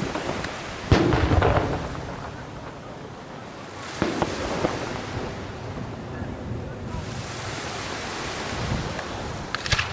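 Fireworks going off: a sharp bang about a second in, another about four seconds in, and a quick run of crackling near the end, over wind noise on the microphone.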